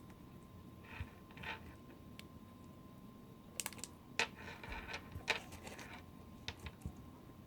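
Small plastic toy pieces and packaging being handled: scattered light clicks and rustles, busiest in the middle.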